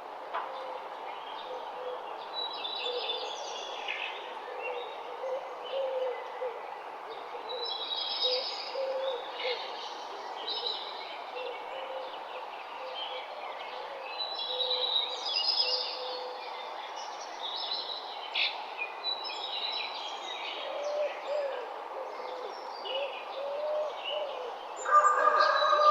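Morning birdsong: many small birds chirping and trilling over a steady background hiss, with a low, wavering call repeating every second or two. A louder, held call starts near the end.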